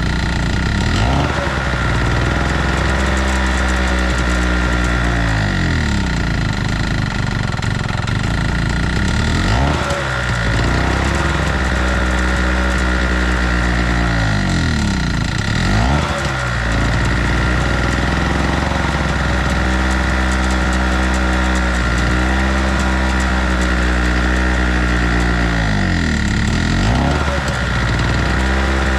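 Chicago Electric 800-watt two-stroke portable generator engine running, its speed sagging and picking back up every few seconds instead of holding steady. The owner takes this for a carburettor fault.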